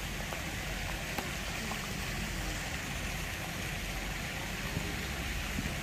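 Breeze blowing over the microphone: a steady rushing hiss with an irregular low rumble of gusts.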